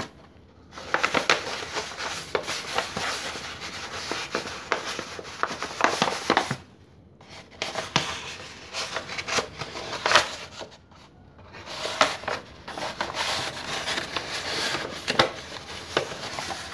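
A sheet of stiff paper being rolled and worked into a cone by hand, rustling and crackling irregularly. It stops briefly a few times.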